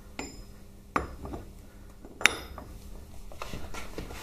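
Metal clinks and knocks as a large socket is fitted over the nut on a motorcycle's primary drive. There is one sharp clink about a second in and a louder one a little after two seconds.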